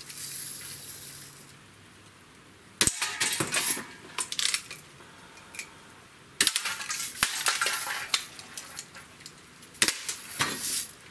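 Daisy Red Ryder lever-action BB guns being shot and cocked: several sharp spring-gun snaps, metallic clinks of BBs striking and knocking down cans, and the rasp of the cocking levers between shots.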